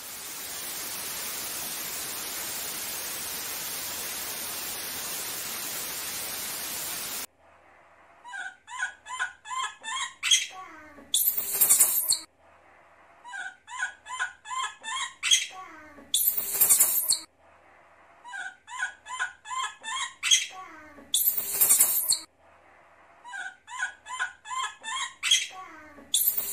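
A steady hiss of static that cuts off about seven seconds in. Then a looped squealing-cry sound effect: a run of about five short, high squeaks that grow louder, then a loud shrill screech. The same cycle repeats about every five seconds.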